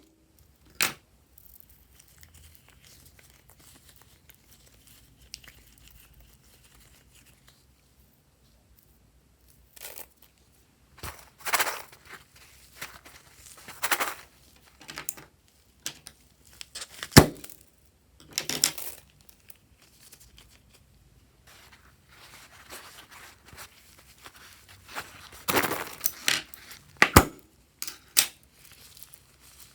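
Hands working with slime-making materials: clusters of short, noisy handling sounds separated by quiet gaps, with two sharp clicks, one about halfway through and one near the end.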